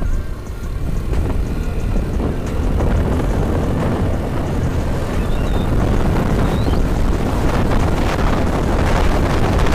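A motorcycle riding along a road, its engine and tyre noise under heavy wind buffeting on the microphone. It grows louder over the first few seconds, then holds steady.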